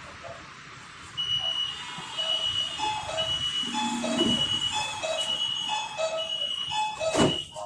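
Metro train's door warning chime: a rapid two-tone beeping, about two beeps a second, starting about a second in, with a thud near the end as the doors shut.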